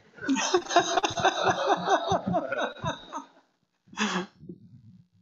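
Congregation laughing briefly, several voices together, fading out after about three seconds; a single short vocal burst like a cough follows about four seconds in.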